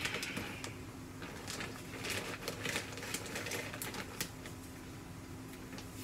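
Dry long-grain rice being scooped out of its plastic bag, the grains rattling and the bag crinkling in irregular little clicks that die down about four seconds in, over a steady low hum.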